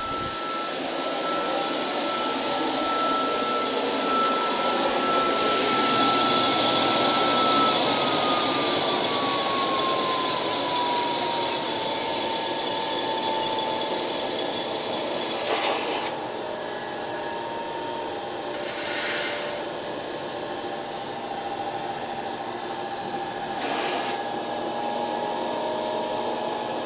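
Home-built fluid-bed coffee roaster's blower running with the heat off, air-cooling the freshly roasted beans after second crack: a steady rush of air with a thin whine that glides down in pitch about eight seconds in. A few short knocks and rattles in the second half as the chamber is handled and the beans are dumped.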